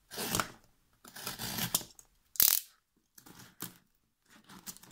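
Yellow snap-off box cutter at work on a taped cardboard parcel: ratcheting clicks of the blade and scraping strokes as it is drawn through the packing tape. A single sharp click about two and a half seconds in, then a few lighter clicks.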